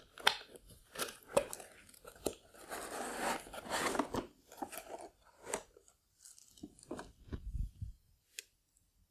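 Cardboard model box being opened and its clear plastic tray and foam insert slid out: scraping, rustling and sharp clicks of packaging handled, dying away near the end.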